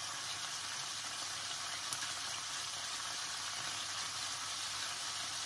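Chicken pieces frying in oil in a frying pan: a steady sizzling hiss.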